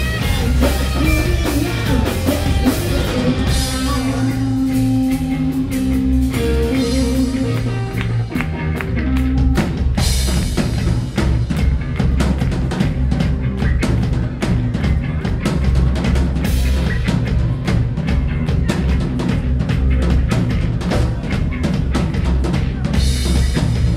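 Live rock band playing loud: drum kit, electric guitar and bass. The top end thins out for several seconds, then the full band comes back in with a crash about ten seconds in.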